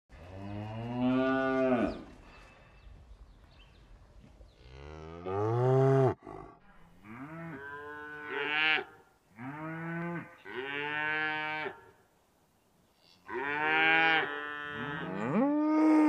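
Cattle mooing: a series of about six long moos with short pauses between them, the last one still going at the end.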